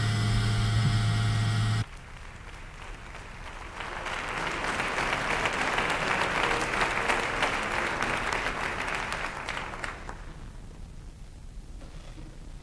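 A steady low hum cuts off sharply about two seconds in; then a theatre audience applauds, swelling over a few seconds and fading away near the end.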